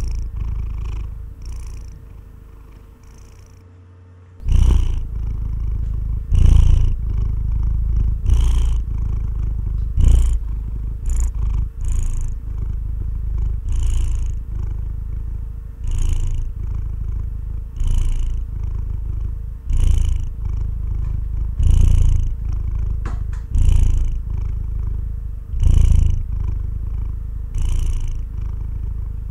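A sleeping calico cat purring: a low, steady rumble that swells with each breath, about once every two seconds. Around two seconds in the purr fades right down, then picks up strongly again about four and a half seconds in.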